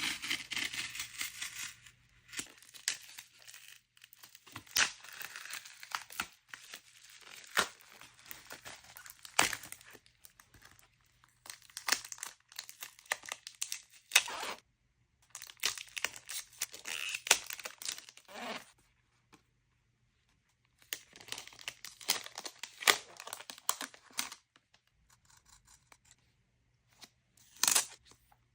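Packaging being torn open and crinkled by hand: tearing and rustling in bursts of a few seconds, with sharp clicks and short pauses between.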